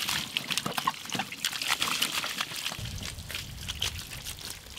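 Water poured from a plastic bucket splashing and trickling over a skinned crocodile carcass on banana leaves as it is rinsed by hand. A low rumble joins about three seconds in.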